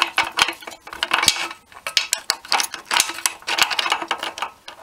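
A metal tool clinks and scrapes against the pinion gear and nut inside an OMC Cobra sterndrive lower unit gearcase, in a quick, irregular run of small metallic clicks.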